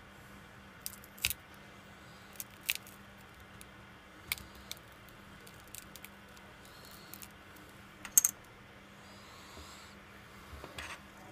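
A plastic prying pick working under the glued touchscreen glass of a Samsung Galaxy Ace 3, giving short sharp plastic-on-glass clicks and snaps every second or two as the adhesive lets go. The loudest is a double snap about eight seconds in, and a few softer ticks come near the end.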